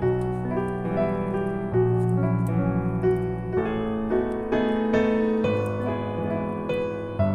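Background music: a piano or electric keyboard playing a melody with chords.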